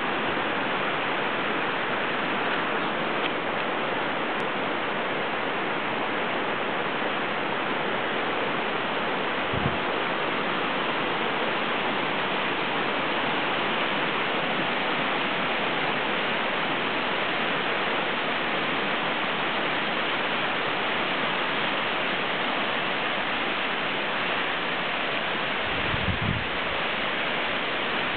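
Steady rushing of a fast-flowing river over gravel, with a couple of brief low thumps, one about ten seconds in and one near the end.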